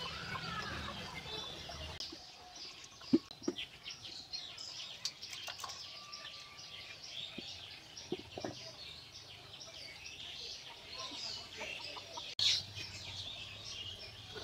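Chickens clucking and small birds chirping, with a few sharp knocks near 3, 8 and 12 seconds in. A low hum in the first two seconds stops abruptly.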